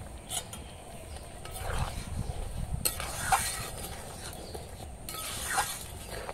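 Metal spatula stirring leaves into simmering liquid in a metal wok, scraping and clinking against the pan a few times.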